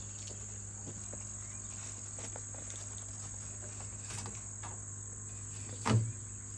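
Steady insect chorus, like crickets, in a high band, with a few faint ticks of a knife working a flathead catfish on a wooden table and one sharp knock about six seconds in.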